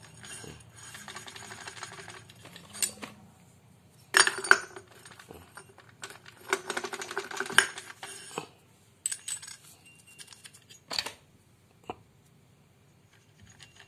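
Aluminium clutch hub and clutch basket of a Kawasaki Ninja two-stroke engine clinking and rattling as they are worked together by hand. The clatter comes in bursts, loudest about four to five seconds in and again around seven seconds, with a few single sharp metal clicks.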